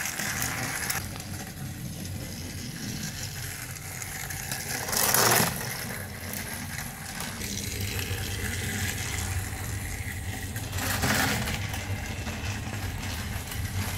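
Battery-powered Thomas & Friends TrackMaster toy train motor running, its engine rattling along plastic track with a steady hum. Two brief louder noises come about five and eleven seconds in.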